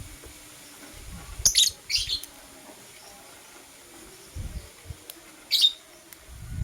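Lovebirds giving short, shrill chirps: two close together about a second and a half in and another near the end, with a few soft low thumps between them.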